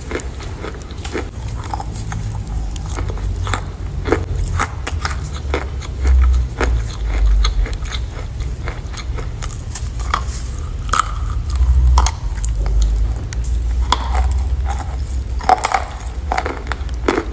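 Chalk being bitten and chewed: many short, irregular crunches and crackles, over a dull low rumble that swells twice.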